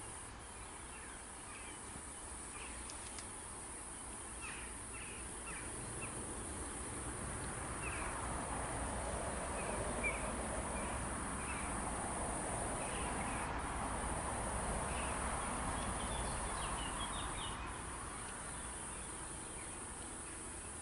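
Birds chirping over a steady high drone of insects, with a broad rushing noise that swells in the middle and fades away again.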